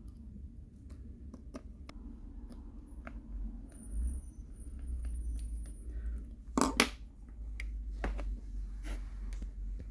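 Small clicks and taps of a precision screwdriver and tiny screws, as screws are driven back into a smartphone's internal cover. A sharper double click comes about two-thirds of the way through, over a low steady hum.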